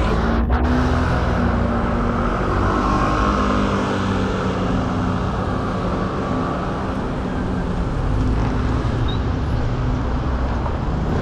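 City road traffic with car engines running, heard over a steady wind rumble on the microphone from riding along the street.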